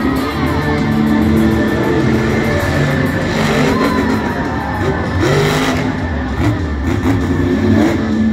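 Monster truck engine running and revving in a stadium, the pitch rising and falling, with music playing over the arena sound system.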